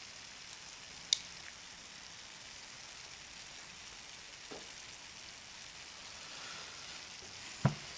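Steady fizzing hiss of a dry-ice and ethanol cooling bath bubbling in a plastic tub, with a sharp click about a second in and a dull knock near the end as the pliers and twig are worked in the tub.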